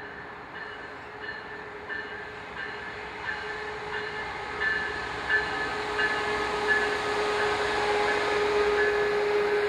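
Train approaching and growing steadily louder, with a steady tone that strengthens toward the end and regular clicks about every 0.7 s as the wheels run over the rail joints.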